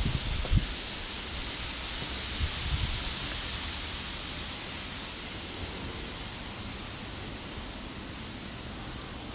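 Steady outdoor background hiss with no distinct event, broken by a few brief low thumps in the first three seconds.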